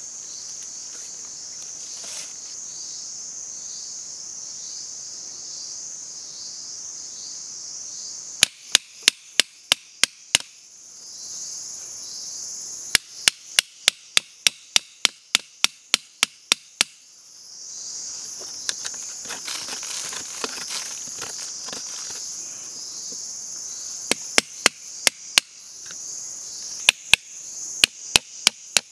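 Runs of quick, sharp knocks of a large knife striking wood, about three or four a second, heard in four bursts. Under them runs a steady high-pitched buzz of insects.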